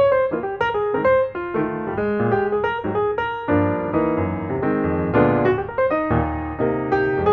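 Background piano music, many quick notes played one after another.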